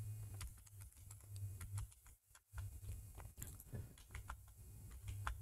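Faint, irregular keystrokes on a computer keyboard as a string of digits is typed.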